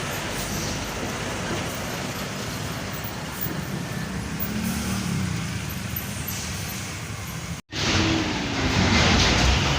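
Road traffic with heavy truck engines running past. A brief dropout near the end, after which a louder, deeper truck engine comes in.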